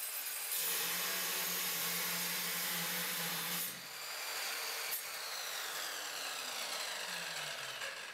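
Exact PipeCut orbital pipe saw with a diamond disc cutting through a cast iron pipe: a steady grinding, cutting noise over the motor's hum. The pitch falls over the last few seconds.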